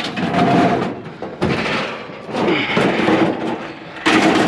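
Scrap items being shifted and handled: a run of rough scraping, rattling and knocking, loudest as a sharp burst about four seconds in.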